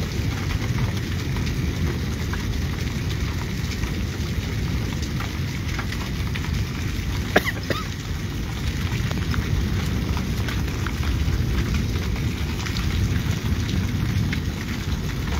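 Steady rain during a thunderstorm, with scattered drops ticking on nearby surfaces over a constant low rumble. One sharper, louder tick about seven seconds in.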